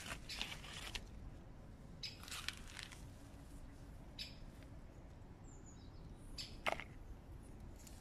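Bean plants rustling and short sharp snips as green bean pods are cut with scissors, the loudest snip near the end, with a few faint high bird chirps.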